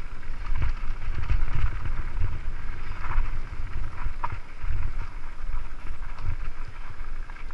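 Mountain bike rolling downhill over loose gravel and dirt, tyres crunching, with wind buffeting the action camera's microphone as a heavy uneven rumble. A few sharp knocks from the bike jolting over bumps.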